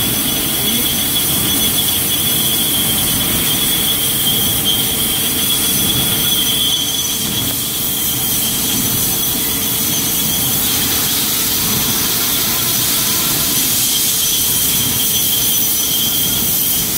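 Metal lathe boring out a bushing with a boring bar: steady machining noise from the turning chuck and the cut, with a high, steady whine that fades out just before the end.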